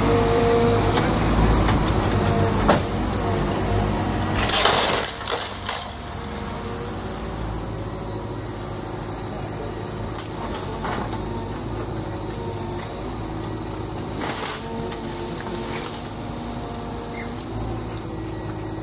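Hyundai excavator's diesel engine running steadily as it tears down a small building, with cracking and crashing of breaking building material about three and five seconds in and again around fourteen seconds.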